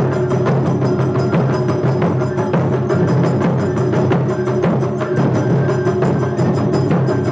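Japanese taiko drums played in a fast, steady rhythm: wooden bachi sticks beating the heads of barrel-shaped chu-daiko, one of them on a low slanted stand, in a dense, unbroken run of strikes.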